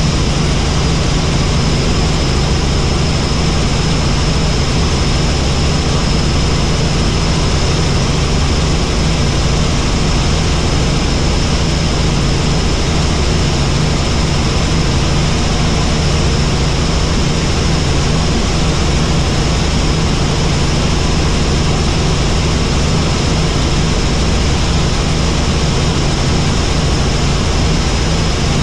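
Helicopter in steady flight: a loud, even low drone with a thin, steady high whine over it.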